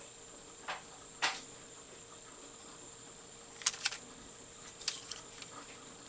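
Craft knife cutting through magazine paper: a handful of short, faint scratching strokes of the blade, spaced irregularly.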